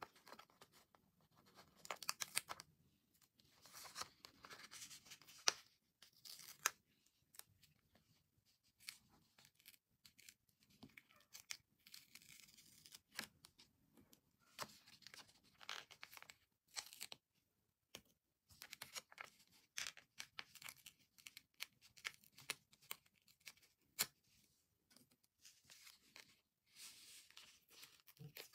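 Paper stickers being peeled off a sticker sheet's backing while the sheet is handled, in short, irregular crackling and rustling spurts with pauses between them.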